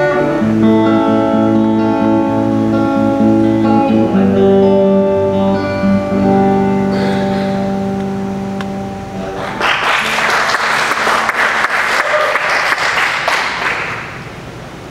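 A band's closing chords ring out and hold for about nine seconds, then the audience applauds for about four seconds.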